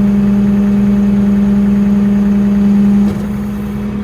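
Farm machine's engine running with a steady, loud drone that drops in level about three seconds in.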